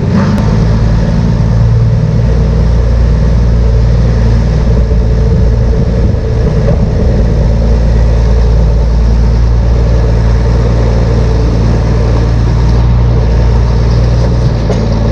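Large farm machine's engine running steadily at a constant speed.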